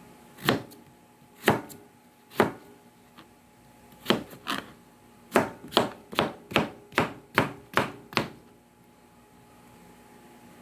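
Kitchen knife chopping peeled chayote on a plastic cutting board: about a dozen sharp knocks of the blade through the vegetable onto the board, a few slow strokes first, then a quicker run of about two and a half chops a second, stopping about two seconds before the end.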